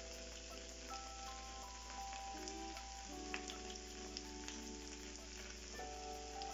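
Marinated tandoori chicken pieces frying in oil in a frying pan on high flame, a quiet steady sizzle with a few light crackles. Soft background music of slow held notes plays alongside.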